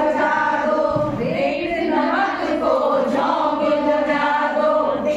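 A group of women singing together in Hindi, drawing out long held notes.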